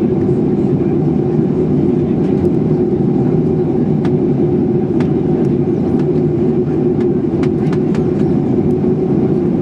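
Steady cabin noise of a Boeing 737-800 in flight during descent: the even rush of its CFM56 engines and airflow, with a steady low hum and a few faint ticks.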